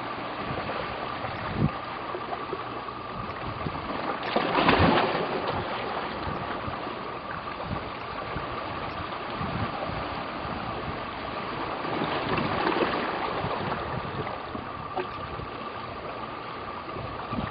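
Steady rushing outdoor noise of wind and water at a shoreline, with a faint steady hum. It surges louder about four and a half seconds in and again around twelve seconds.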